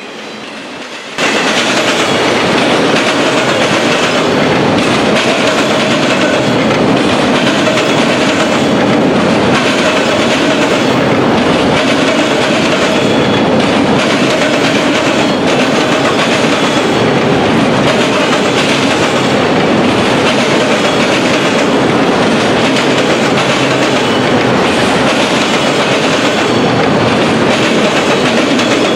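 Autorack freight train rolling over a railroad diamond crossing: a loud, steady rumble of passing cars with wheels clicking over the crossing, starting abruptly about a second in.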